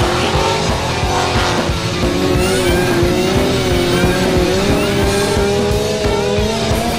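Revving motorcycle and car engines with squealing tyres as they slide through bends, mixed with music that has a steady beat.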